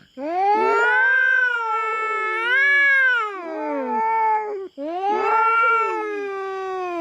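Cats caterwauling in a territorial standoff: long, drawn-out yowls that waver up and down in pitch, one running on into the next with a brief break just before five seconds in.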